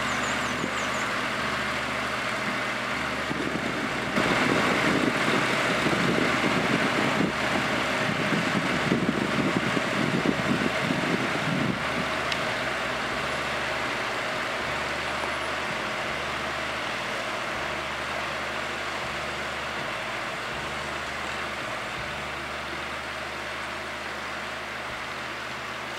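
A Dongfeng tractor's diesel engine runs steadily as the tractor drives off down a dirt lane. It is louder for several seconds in the first half, then fades gradually as the tractor pulls away.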